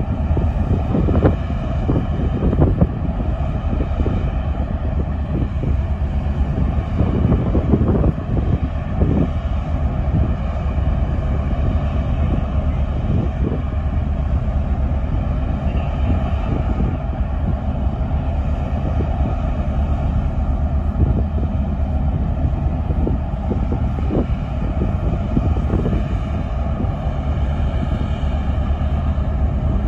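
The ferry Ulysses's engines and shipboard machinery running as the ship pulls away from its berth: a steady low drone with several steady hum tones over it. Wind gusts buffet the microphone throughout.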